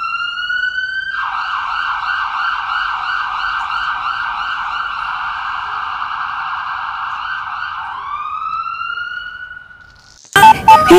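Emergency-vehicle siren: a rising wail switches about a second in to a fast warbling yelp for about seven seconds, then goes back to a rising wail that fades away. Loud music cuts in near the end.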